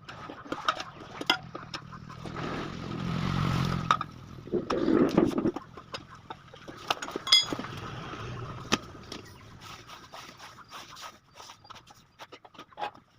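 A motorcycle tyre and tube being worked by hand onto a steel spoked rim: rubber scraping against the rim, with many sharp metallic clinks and knocks. Two longer scrapes swell up a few seconds in.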